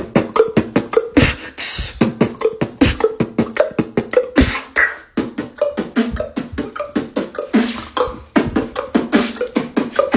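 Beatboxing in a water style: a fast, steady run of sharp mouth clicks and pops mixed with short pitched bloops that imitate water drops, with brief breaks about five and eight seconds in.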